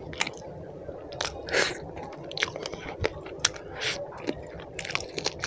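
Close-miked eating sounds from chicken curry and roti: wet chewing and mouth smacks with many short sharp clicks, and a few longer squishy smacks.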